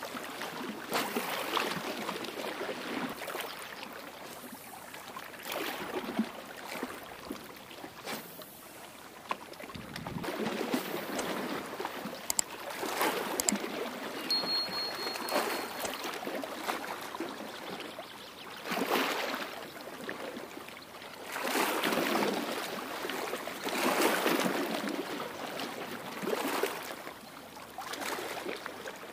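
Small waves lapping and splashing against a rocky riverbank, coming in uneven surges every two to three seconds.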